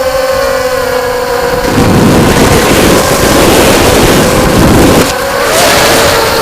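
Racing quadcopter's electric motors and propellers whining at a steady pitch. From about two seconds in, a louder rough rushing noise takes over for about three seconds, then the steady whine returns.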